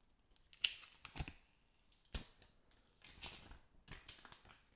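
Thin plastic protective film being peeled and handled on a smartphone: a few short, quiet crinkles and clicks, scattered, with a small cluster about three seconds in.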